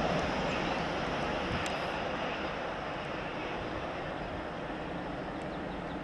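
High Speed Train with Paxman VP185 diesel engines in its class 43 power cars passing at speed, a steady roar of engines and wheels on rail that slowly fades as the train draws away.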